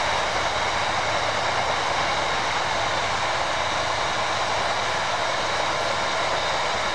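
Freight train rolling past, a steady noise of wagon wheels running on the rails.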